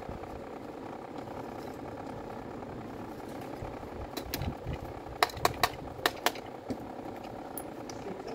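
Sharp clicks and knocks from handling the plastic housing and parts of a disassembled Makita orbital sander, with about five in quick succession a little past halfway. A steady low hum runs underneath.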